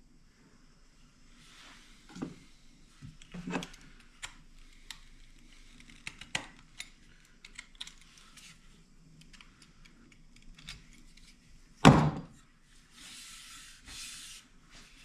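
Scattered knocks and clicks as an axe and hand tools are handled on a workbench. One loud knock comes about twelve seconds in, followed by a short hiss.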